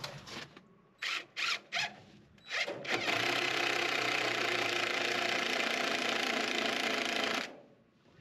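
Cordless drill working at the bottom plate of a wooden wall frame: a few short trigger bursts, then one steady run of about four and a half seconds that stops sharply.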